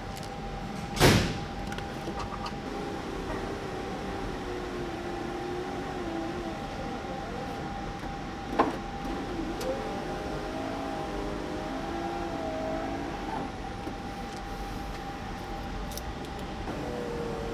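Power window motor in a BMW E39 M5 door driving the glass on a newly installed window regulator: a wavering whine lasting a few seconds, run several times. Two sharp knocks, one about a second in and another past the middle.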